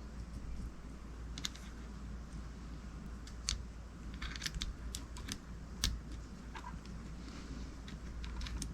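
Scattered small clicks and taps of metal parts of a Gomexus SX450L reel being handled and pressed into place during reassembly, the two sharpest about three and a half and six seconds in, over a steady low hum.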